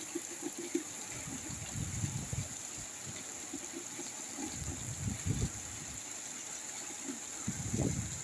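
Rain falling steadily as a constant hiss, with strong wind gusts buffeting the microphone in uneven low rumbles.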